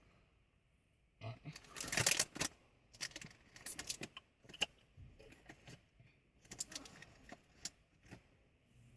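A bunch of car keys jangling and clinking in short bursts, loudest about two seconds in.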